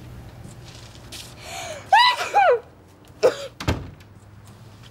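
A person sneezing: a gasping breath in and two high, rising-then-falling 'ah' cries about two seconds in, then a short sharp burst about a second later, followed by a brief click.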